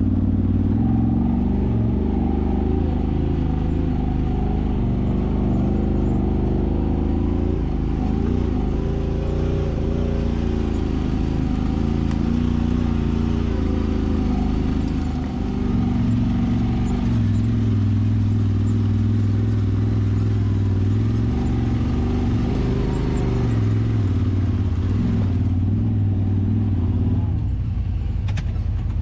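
Side-by-side UTV engine running under way on a trail, its pitch wavering with the throttle and dipping briefly about halfway through.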